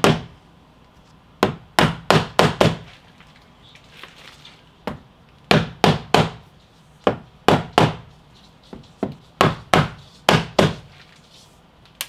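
Soft-faced hammer knocking a smart lock's body into a tight-fitting door mortise: sharp blows in quick runs of three or four, with short pauses between runs.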